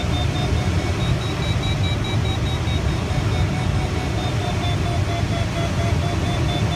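Audio variometer in an ASK13 glider cockpit beeping rapidly at a steady pitch, the beeping that signals the glider is climbing in a thermal. Under it, a loud low rush of airflow around the cockpit.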